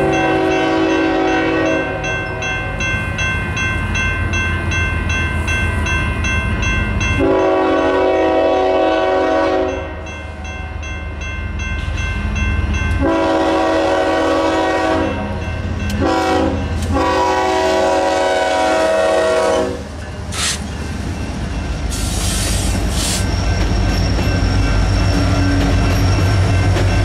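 A grade-crossing bell rings steadily while the diesel locomotive's air horn sounds the crossing signal. There are long blasts about a second in, around seven seconds and around thirteen seconds, then two short ones and a final long blast that ends about twenty seconds in. After that, the locomotive arrives and passes, and its engine and wheel rumble grows louder toward the end.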